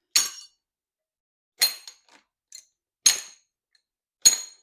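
Steel hydraulic lifters from a Ford 460 V8 clinking against one another as they are dropped one at a time into a bag, four sharp metallic clinks about a second and a half apart, each ringing briefly.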